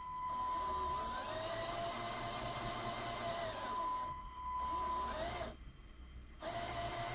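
Small LEGO electric motors running with a steady whine that rises as they start about a second in, stops about five and a half seconds in and starts up again near the end. A thin steady high tone sounds alongside until about five seconds in.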